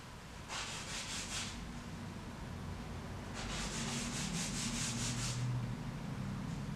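Paintbrush scrubbing oil paint onto gesso-primed canvas: a quick run of about four scratchy strokes about half a second in, then a longer run of about eight strokes in the middle.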